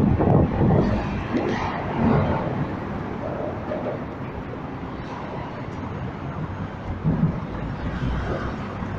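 Low steady rumble of bus and street traffic with general street noise, louder in the first two seconds.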